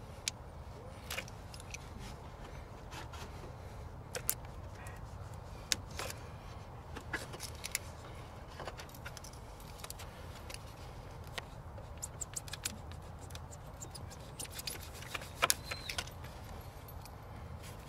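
Scattered small clicks and scrapes of a knife blade working at an old rubber radiator hose and of hands shifting wiring around it, over a low steady background hum; a sharper pair of clicks comes near the end.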